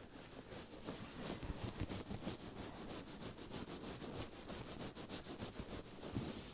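Quick, close brushing and rubbing strokes on the microphone, in the manner of an ASMR ear massage: a dense run of short scratchy strokes, several a second.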